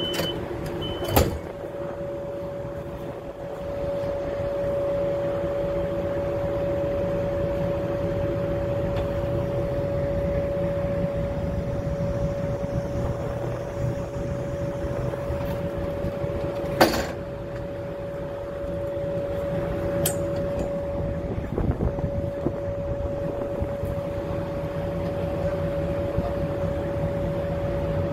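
Interior of a Greyhound coach under way: steady engine and road rumble with a constant hum. There are two sharp knocks, one a little over a second in and one past the middle.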